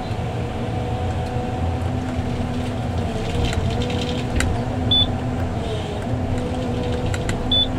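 John Deere 1170G harvester running steadily, heard from inside the cab: a diesel and hydraulic hum whose note shifts slightly as the head works a spruce. A few faint clicks, and two short high beeps about five and seven and a half seconds in.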